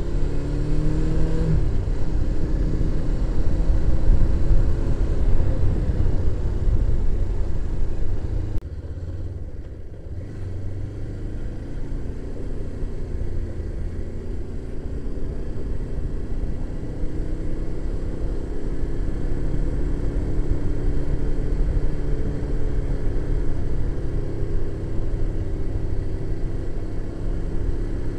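Suzuki GS500E's air-cooled parallel-twin engine running on the move, its pitch rising and falling with the throttle, under heavy wind rumble on the microphone. The sound drops sharply in level about eight and a half seconds in.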